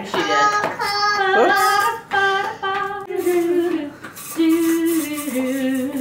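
A high voice singing a simple tune: one held note after another, stepping up and down in pitch.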